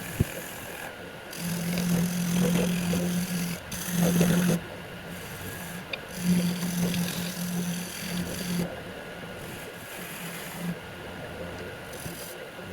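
Wood lathe running with a steady low hum while a turning tool cuts the spinning wood, giving a loud hissing scrape in two long passes, one from about a second and a half in and one from about six seconds in. A single sharp click at the very start.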